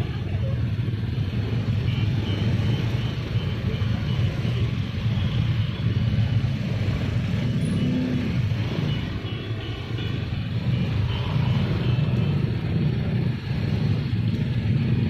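Several motor scooters idling and edging forward close around, a steady low engine rumble.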